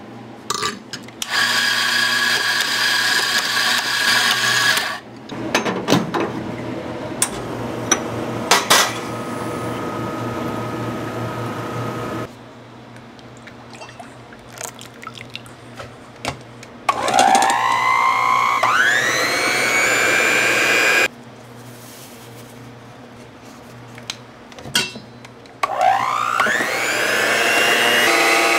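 Commercial coffee grinder's motor running steadily for a few seconds, followed by machine noise with sharp clinks. Later an electric hand mixer starts up twice, each time with a whine that rises in pitch as the motor spins up and then holds steady.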